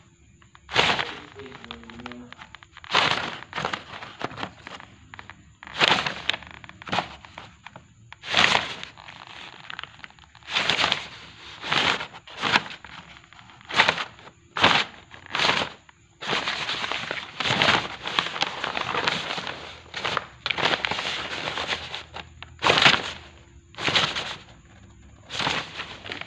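Stiff rolled paper crinkling and rustling in irregular bursts, one every second or two and a longer run late on, as a kitten paws, bites and scrambles over it.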